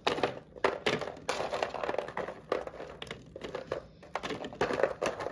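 Kitchen handling noises: irregular crinkling and rustling with light knocks.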